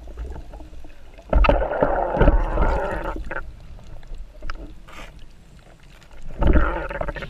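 Underwater camera audio as a speared fish is grabbed by hand: muffled sloshing and knocks against the camera housing, with two loud rushes of churning water, about a second in and again near the end.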